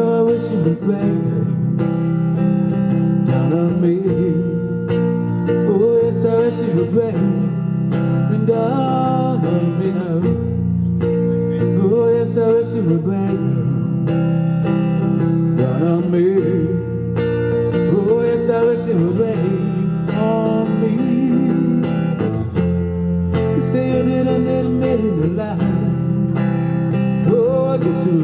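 Small live band playing a song: electric guitar and electric bass, with a male singer's voice through a microphone and PA.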